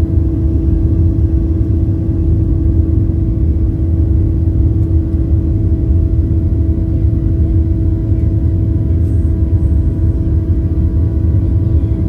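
Steady low rumble of a running vehicle engine with a constant droning hum over it, unchanging throughout.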